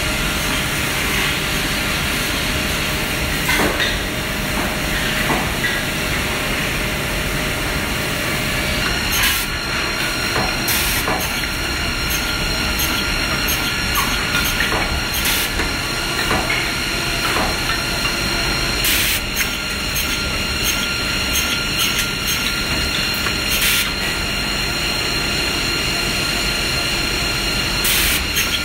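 A Woodmaster WM-S260 high-speed chalk-mark defect-cutting saw running: a steady machine noise with air hiss, broken every few seconds by a sharp knock.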